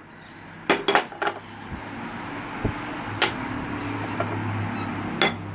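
A few sharp clinks and knocks of dishes or utensils being handled, three in quick succession about a second in, then one more each near the middle and near the end. A low steady hum builds underneath from about two seconds in.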